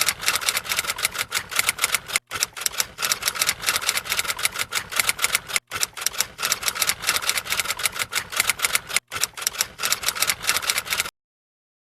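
Rapid, even typewriter-like clicking, several clicks a second. It breaks off cleanly three times and stops sharply near the end, which suggests an edited-in looped sound effect.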